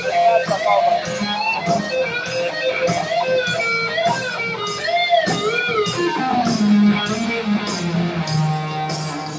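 Live blues-rock power trio playing: an electric guitar lead with bent, wavering notes over bass guitar and drums, cymbals keeping a steady beat.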